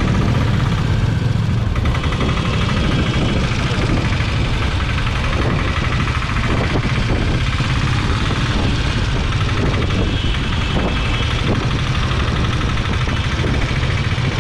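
Motorcycle engine running steadily, a constant low drone under an even rushing noise.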